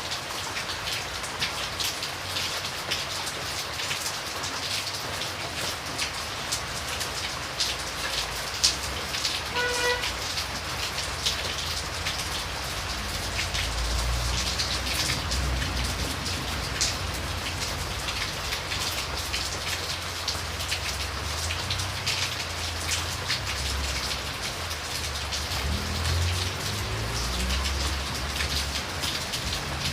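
Steady rain falling, a constant hiss with many separate drop hits. A short, high, pitched tone sounds once about ten seconds in, and a low rumble comes and goes through the second half.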